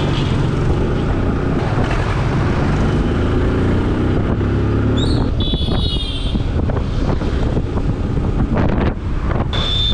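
Motorcycle engine running at road speed, with heavy wind noise on the microphone. Two short high-pitched tones sound over it, one about five seconds in and a briefer one near the end.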